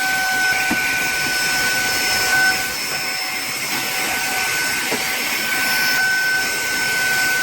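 SAKAKI cordless handheld vacuum cleaner running steadily: rushing air with a constant high motor whine.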